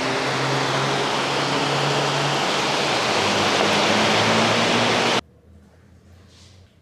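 A steady, loud rushing noise that cuts off abruptly about five seconds in, leaving faint room tone.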